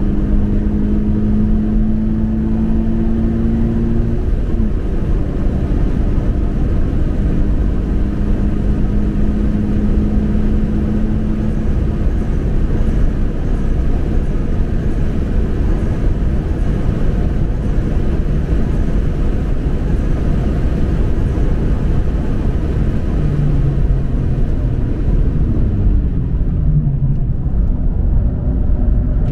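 Toyota 86's flat-four engine driven hard on track: revs climb for about four seconds, step at a gear change, then hold high for a long stretch. Near the end the revs fall in short steps as the car slows.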